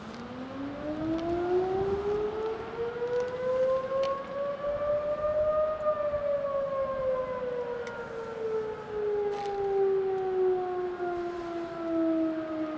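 STH-10 electromechanical siren sounding a noon blast: a single tone that winds up to its peak about six seconds in, then slowly winds down.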